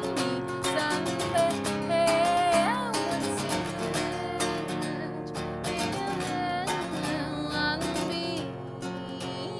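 Acoustic guitar strummed in a live performance, with a woman's voice singing a wavering melody over it.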